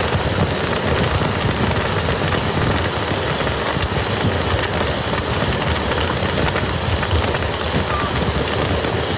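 Wood fire crackling with small irregular pops over the steady sound of flowing river water.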